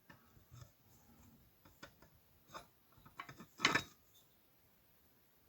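Vintage Suffolk small engine, its cylinder head off, being turned over slowly by hand: faint, scattered mechanical clicks and ticks, with one louder clack about three and a half seconds in.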